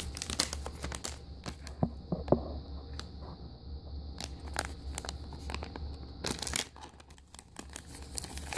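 Crinkling and tearing of a foil blind-bag packet being handled and opened by hand: many short, irregular crackles, with a louder burst of crinkling about six seconds in.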